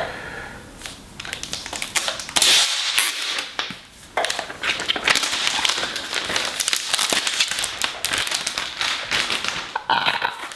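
Packaging being pulled off a new laptop: a dense crackling rustle with many small clicks, louder from about two and a half seconds in.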